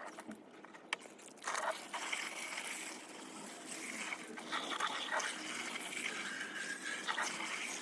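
Quiet running water trickling and splashing over a muddy plastic toy truck as it is rinsed, with a few light knocks.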